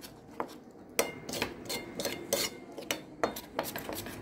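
Steel spoon stirring thick batter in a hammered stainless-steel bowl, clinking and scraping against the bowl's sides in irregular strokes, about two or three a second.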